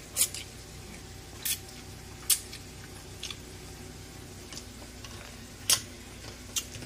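Scattered sharp clicks and light taps, about five of them and irregularly spaced, over a steady low hum.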